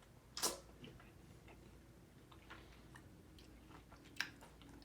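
Quiet chewing of strawberry cheesecake, with soft scattered mouth clicks, a sharper click about half a second in and another near the end.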